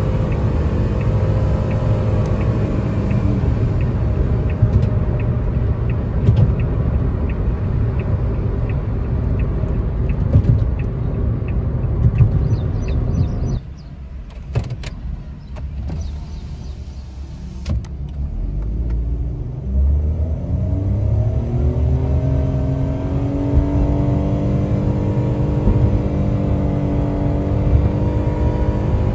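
Suzuki Wagon R 660cc three-cylinder engine heard from inside the cabin, running hard at speed with road noise. It drops suddenly to a quieter idle, then revs up as the car pulls away under full throttle. The engine note rises and then holds nearly steady while the speed keeps climbing.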